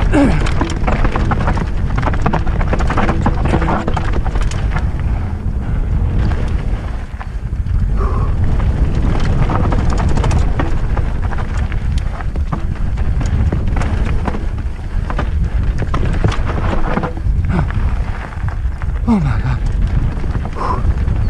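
Mountain bike descending a rocky dirt trail, heard from a helmet camera: wind buffeting the microphone in a steady rumble, with rapid rattles and knocks as the tyres hit rocks and ruts.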